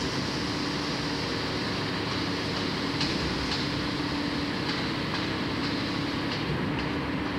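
Heavy construction machinery running steadily: an even mechanical drone with a steady hum and faint, irregular ticks.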